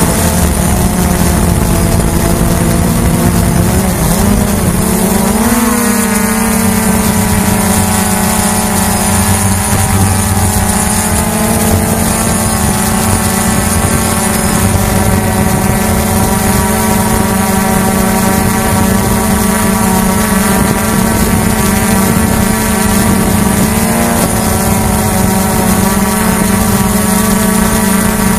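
Hubsan H109S quadcopter's motors and propellers whining steadily, heard from the drone's own onboard camera. The pitch wobbles and rises about five seconds in, then holds steady, with a brief shift near the end.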